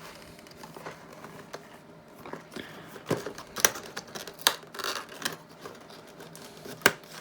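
Irregular clicks and taps of hands prying open the box of a Rode VideoMicro microphone, the sharpest snaps about three seconds in and near the end.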